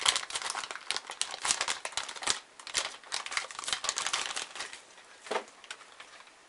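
Clear plastic packaging crinkling and crackling as a slot car is slid out of its wrapper and handled. The crackling is dense and irregular for about four seconds, then thins to a few scattered clicks near the end.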